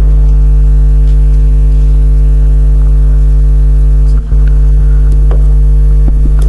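Loud, steady electrical mains hum with a stack of evenly spaced overtones above it, dipping briefly about four seconds in, with a few faint clicks in the background.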